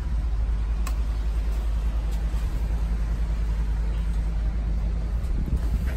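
Steady low rumble of a 75-foot Pluckebaum motor yacht's engines under way, with a faint steady hum coming in about two seconds in and fading near the end.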